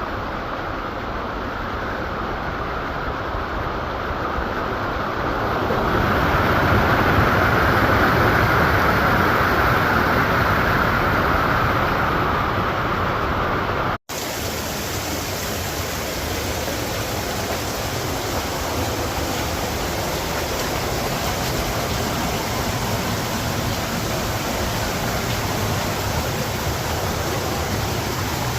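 Waterfall water pouring and splashing in a steady rush. About halfway through, the sound cuts out for an instant and resumes brighter and hissier, as from a different spot at the falls.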